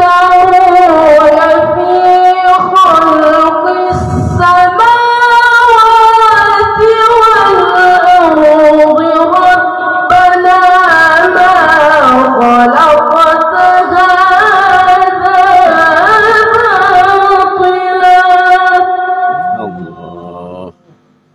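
A boy qari reciting the Quran in melodic tilawah style into a microphone, a long high phrase of held, wavering notes that trails off near the end.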